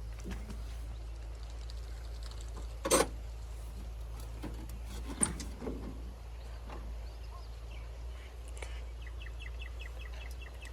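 Steady low rumble with a sharp knock about three seconds in and a lighter one about two seconds later, then a short run of rapid bird chirps near the end.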